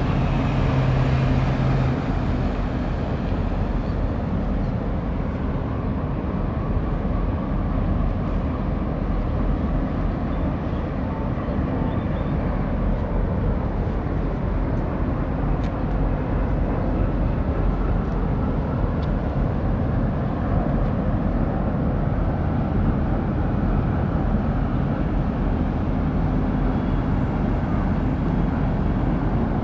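Steady low rumble of a large container ship and its escort tug moving past at close range, with a faint engine hum heard near the start and again near the end.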